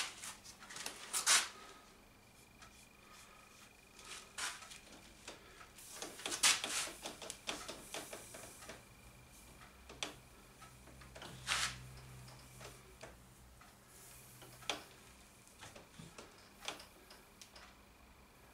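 Thin wooden strips being handled and pressed around a heated metal bending pipe: scattered taps, knocks and scrapes of wood against wood and metal, with a busier run of handling noise about six seconds in.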